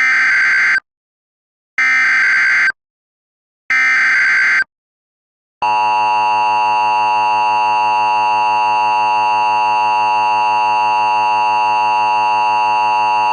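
Emergency Alert System tones: three short bursts of SAME digital header data, about two seconds apart, then from about five and a half seconds in the steady two-tone EAS attention signal. The sequence marks the start of an emergency alert, here an Amber Alert for a child abduction.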